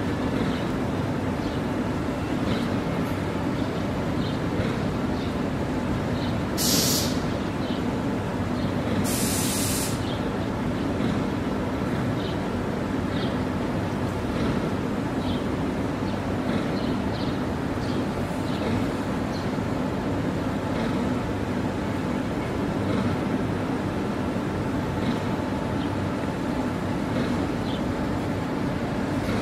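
Steady rumbling background noise with no clear source, broken by two short hisses a couple of seconds apart.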